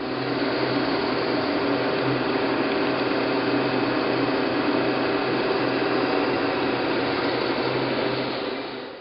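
The spindle of an Atrump 3VK CNC vertical mill, on its DC inverter drive, running steadily at 2500 RPM with no cut being taken: a steady machine hum with a few held tones, fading out near the end.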